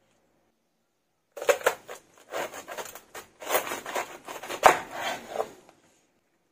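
A kitchen knife slicing down through a whole head of green cabbage on a wooden cutting board: crisp crunching and crackling of the tightly packed leaves, starting about a second and a half in and lasting about four seconds. A sharp knock comes near the end of the cut.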